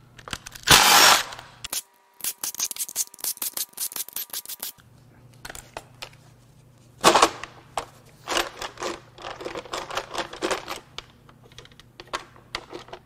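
Cordless impact driver running out the valve cover bolts on a Cummins 5.0 V8 in short bursts, including a rapid hammering run. It is followed by irregular clinks and clatter as the loose bolts and the valve cover are handled and worked free.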